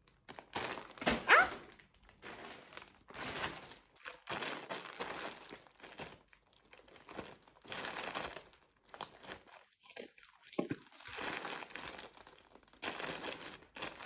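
Plastic packaging crinkling and rustling in irregular bursts as it is handled and opened.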